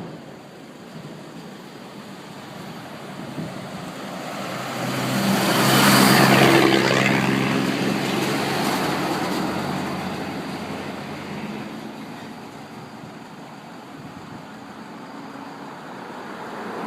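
A motor vehicle drives past, its engine and tyre noise growing louder to a peak about six seconds in, then slowly fading away.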